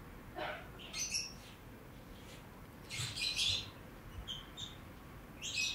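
Faint bird chirps: a handful of short, high calls scattered through a pause in speech.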